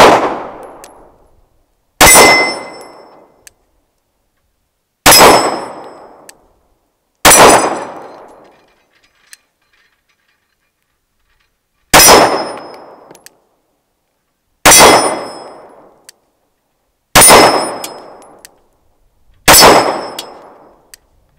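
Seven shots from a 9mm Glock 19 pistol, fired at an uneven pace two to five seconds apart. Each shot has a long fading echo, and a high metallic ring follows most of them as steel targets are hit.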